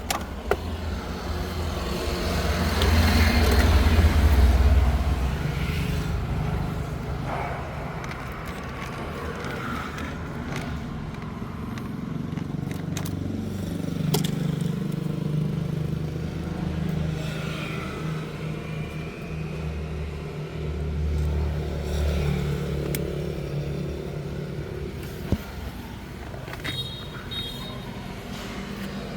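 A car engine running, its low hum rising for a couple of seconds near the start and then settling into a steady run that drifts a little in pitch, with an occasional sharp click.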